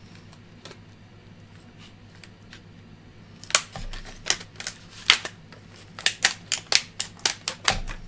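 Scissors cutting through a stiff clear plastic blister pack: after a quiet stretch, a run of sharp, irregular snips and cracks of the plastic begins about three and a half seconds in, two or three a second.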